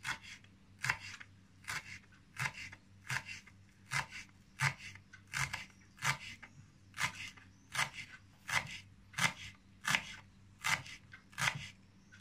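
Kitchen knife chopping fresh dill on a wooden cutting board: a steady rhythm of short cuts, about three every two seconds, each blade stroke knocking onto the wood.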